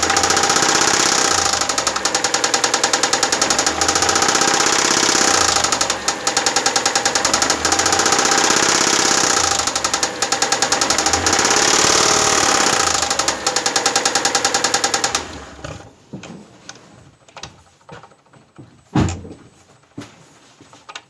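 Mitsubishi 6G74 V6 engine running with a knock, revved up several times with the throttle. The engine sound cuts off about fifteen seconds in, followed by scattered clicks and one sharp knock.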